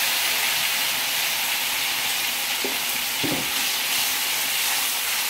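Food sizzling in hot oil in a wok over a gas flame: a steady frying hiss, with a wooden spatula stirring it.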